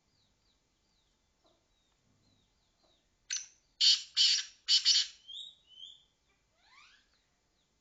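A teetar (francolin) calling: about three seconds in come three loud, harsh calls, then shorter notes and a few rising whistled notes. Faint short high chirps repeat underneath.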